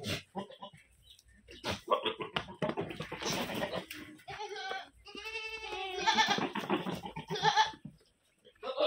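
Goats bleating, several calls one after another, with a long quavering bleat about five seconds in.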